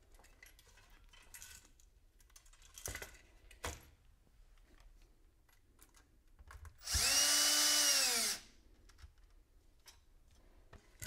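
Cordless drill driving a screw down onto a washer to clamp copper antenna wire to a wooden board: one burst of about a second and a half, the motor's whine rising as it spins up and falling as it stops. A couple of faint knocks come before it.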